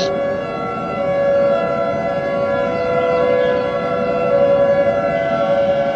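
Warning siren sounding one long, steady tone rich in overtones, the alert signal of an emergency broadcast.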